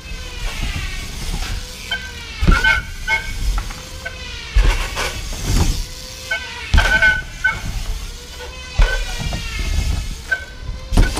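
BMX bike riding a metal-surfaced mini ramp: the tyres give a whirring hum that rises and falls in pitch as the bike speeds up and slows through each pass, with several loud bangs as the wheels land and strike the ramp.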